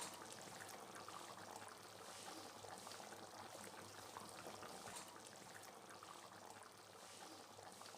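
Faint bubbling of simmering liquid: a steady hiss with small scattered crackles.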